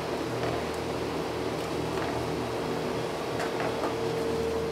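Steady machine hum of kitchen equipment, with a held tone and a few faint light clicks of utensils.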